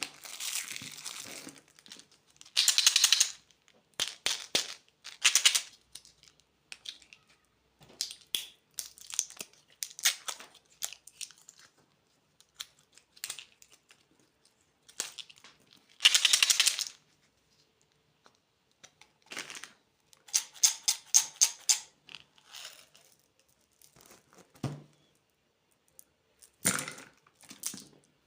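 Plastic candy wrappers crinkling and tearing as packets are opened, in a series of separate rustling bursts with short silent pauses between them, plus one soft low thud near the end.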